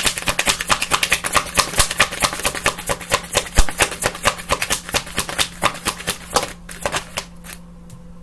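Deck of cards being shuffled by hand: a fast run of crisp clicks, several a second, that stops about six and a half seconds in, followed by a couple of last taps around seven seconds.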